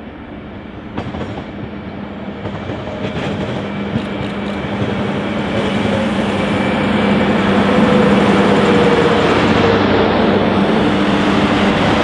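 Hunter railcar, a two-car diesel multiple unit, approaching and passing close by: a steady diesel engine hum with the wheels clicking over rail joints, growing louder until it is alongside from about seven seconds in.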